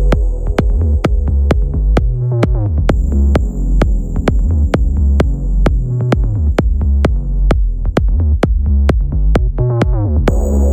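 Electronic background music: a steady drum-machine beat over heavy synth bass, with rising synth sweeps about two seconds in and again near the end.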